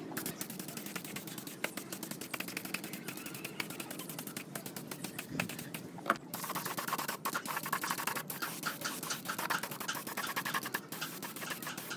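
Irregular scraping and clicking of hand tools working on metal parts, with one sharp knock about six seconds in.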